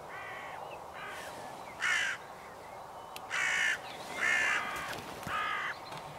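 Hooded crow cawing: a series of about six harsh caws, roughly a second apart.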